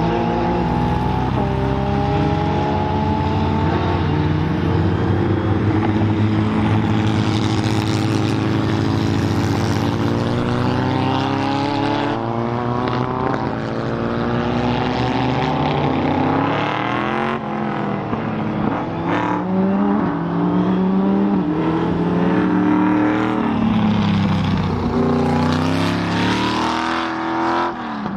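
Car engines accelerating hard on a track, revs climbing and dropping sharply at each gear change, with several cars passing one after another.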